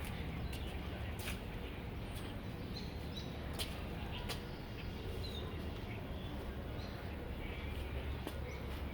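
Small birds chirping now and then over a steady low rumble of outdoor background noise, with a few sharp clicks.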